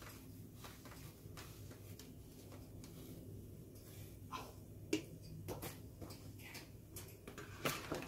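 Faint, scattered clicks and taps from a black-capped lory moving about its cage, coming more often in the second half, over a low steady room hum.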